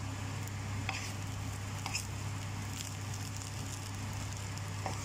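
Wooden spatula stirring and turning fried brown rice in a pan: soft scraping and shuffling of the rice with a faint sizzle, and a few light clicks of the spatula against the pan, roughly once a second, over a steady low hum.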